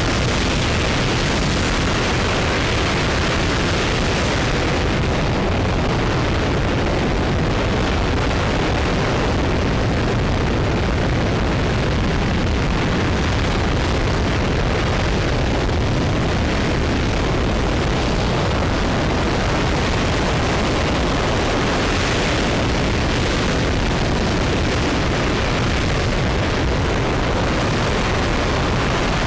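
RS-25 hydrogen-fuelled rocket engine (flight engine E2063) firing steadily in a hot-fire test, a loud, unbroken roar with heavy deep rumble.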